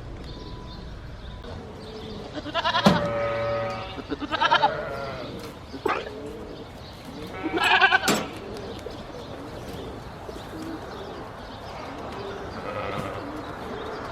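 Flock of sheep and goats bleating: a long bleat about three seconds in, a shorter one soon after, and another loud bleat near the middle.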